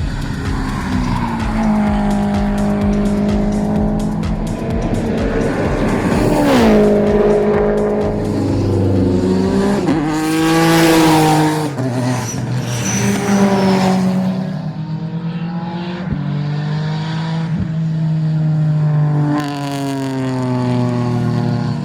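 Subaru race cars' engines at full throttle on a racing circuit, several overlapping engine notes climbing in pitch and dropping sharply at gear changes, with louder peaks as cars pass close by.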